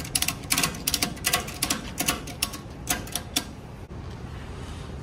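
Ratchet buckle of a tie-down strap being cranked tight, a fast run of sharp metallic clicks that stops about three and a half seconds in.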